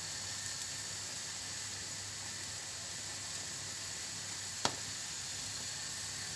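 Potato fritter frying in butter and oil in a nonstick pan on the lowest heat, a steady quiet sizzle. A single sharp click about four and a half seconds in.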